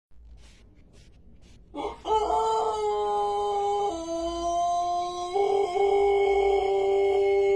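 Pelung rooster crowing a long, drawn-out crow that starts about two seconds in and is held steadily, stepping down and back up in pitch and still going at the end.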